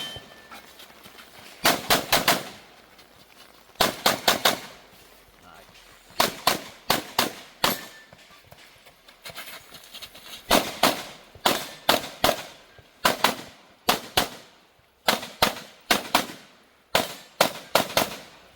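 Sig P320 pistol firing fast pairs and short strings of shots, with gaps of a second or more between groups, as in a timed practical-shooting stage. The shots come thickest in the last half.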